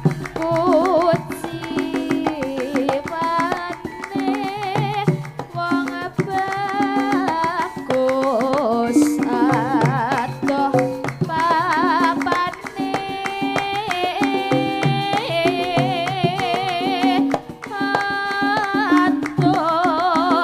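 Javanese gending played live by a gamelan-style ensemble: kendang hand drums keep a steady pattern under a melody that wavers with strong vibrato, played continuously.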